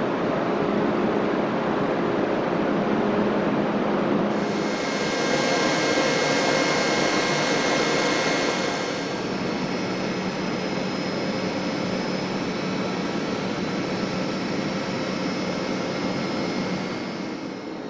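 Electric locomotives' cooling blowers and traction equipment running with a steady rushing hum and several thin whining tones. About four seconds in, a higher whine and brighter hiss set in, easing off a little about halfway through.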